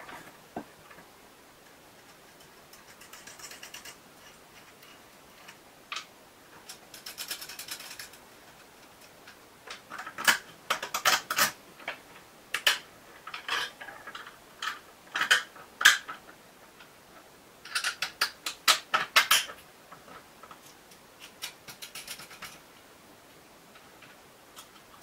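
Small metal parts of a screw clamp and perforated steel strips clicking and clinking as they are handled and the bolts and nuts adjusted by hand. The clicks are scattered, then come in quick clusters about ten, fifteen and eighteen seconds in.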